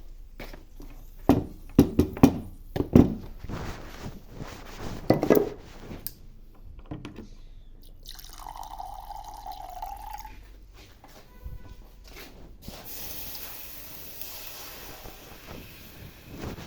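Kitchen sounds while cooking: several sharp knocks and clatters in the first few seconds, then water running and dripping.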